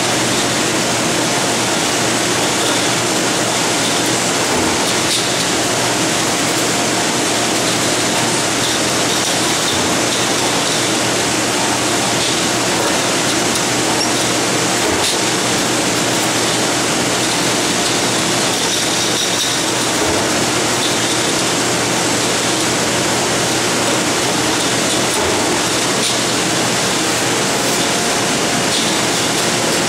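Steady din of factory machinery running, with a few light clicks scattered through it.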